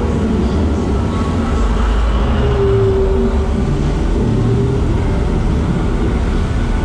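Steady low rumble of a water-ride boat moving through an enclosed tunnel, with a faint held tone rising over it near the middle.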